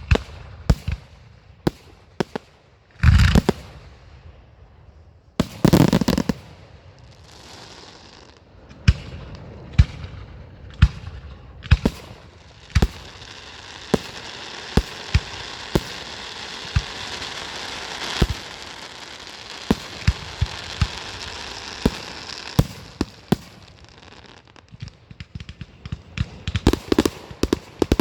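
Fireworks display: sharp bangs of bursting shells, with two loud booms a few seconds in, then a long stretch of crackling with bangs scattered through it, and a rapid string of cracks near the end.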